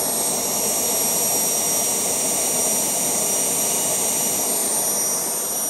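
Home-built Kamps gas turbine running steadily on kerosene: a continuous rushing noise with several high-pitched, steady whine tones above it.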